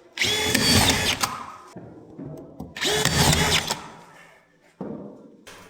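Electric power drill running in two short bursts of about a second each, its motor whine rising in pitch as it spins up.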